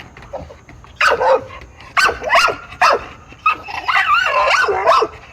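Puppy barking and yipping in a few short bursts, then a longer, wavering bark-whine near the end.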